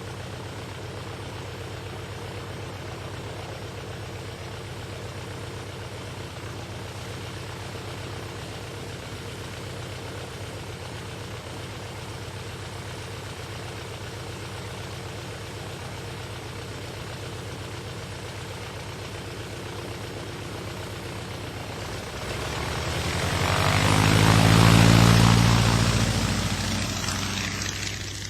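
Propeller airplane taking off: the engine runs steadily for about twenty seconds, then grows much louder as the plane passes close by. It peaks with a falling pitch and fades near the end.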